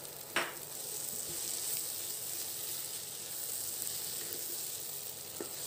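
Prawn and grated-carrot stir-fry sizzling steadily in a non-stick pan while a wooden spatula stirs it, with a single sharp knock about half a second in.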